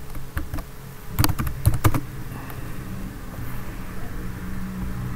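Typing on a computer keyboard: a quick run of keystrokes a little over a second in, then a few lighter key taps, over a steady low hum.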